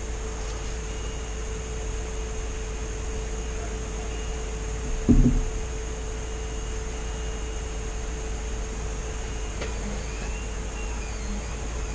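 Steady room hum from a running machine, with a fixed low tone and a faint high whine. A single knock sounds about five seconds in.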